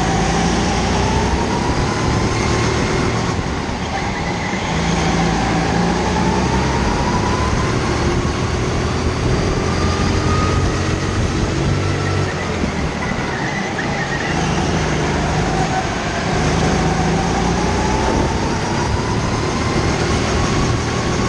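Go-kart lapping an indoor track, heard from onboard: the kart's motor pitch rises as it speeds up on the straights and drops back into the corners, several times over, over a steady rushing noise.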